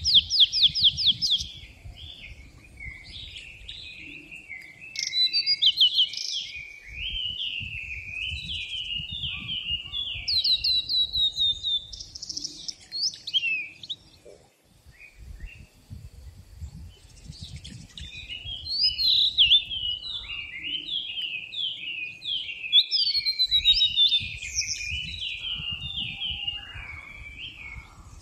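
A songbird singing long, fast-running songs of bright descending trills and strings of repeated down-slurred notes, in two long bouts with a pause of a few seconds between them.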